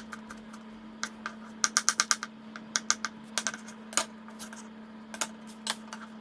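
Kitchen knife chopping tomatoes on a cutting board: sharp, irregular taps, with a quick run of five or six strokes about two seconds in.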